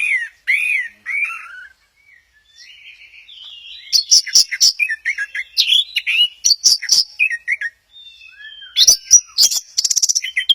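Orange-headed thrush singing a loud run of varied whistled and chirping phrases, with a short pause early on and a fast rattling trill near the end.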